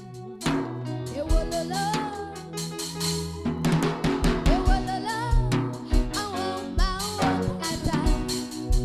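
Live worship band music: a drum kit with snare and bass drum keeping a steady beat under held low bass notes, with a melody line that slides up and down between notes.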